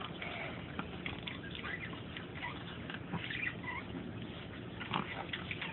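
A pug gnawing on a small bone: irregular clicks and crunches of teeth on bone.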